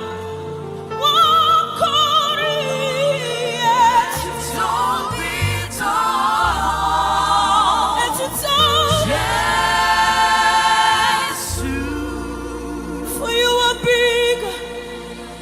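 Gospel worship music: voices singing with vibrato, some of it wordless runs, over sustained keyboard chords and bass notes.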